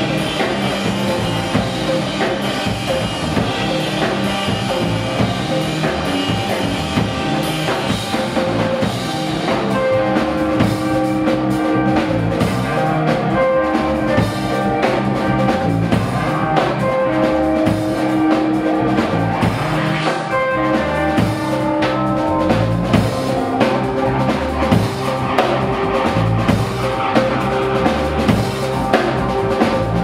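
Live rock band playing an instrumental improvisation: a busy drum-kit beat under bass, electric guitars and long held notes.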